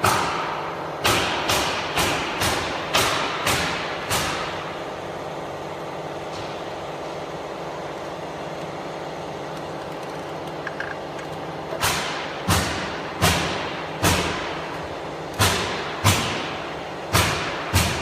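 A series of sharp knocks, roughly two a second, over a steady mechanical hum. The knocks stop after about four seconds, leaving only the hum for around eight seconds, then resume near the end.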